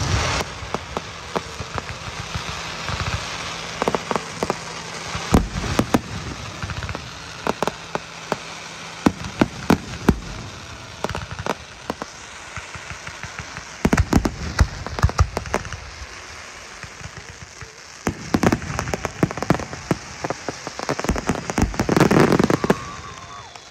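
Fireworks display: aerial shells bursting with sharp bangs over a continuous crackling hiss. The bangs come in a dense run a little past halfway and a heavier barrage near the end.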